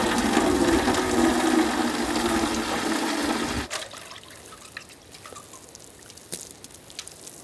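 A stream of water pouring into a galvanized metal watering can as it fills, a steady rushing splash with a hollow ring from the can. It cuts off abruptly about three and a half seconds in, leaving only faint background sound.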